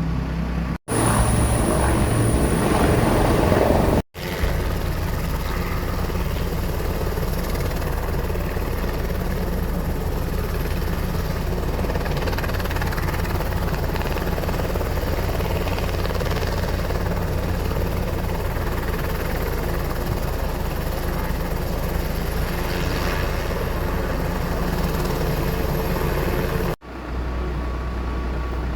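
Aircraft engine and propeller or rotor running steadily with a fast low pulsing. The sound breaks off briefly about a second in, at around four seconds, and again near the end.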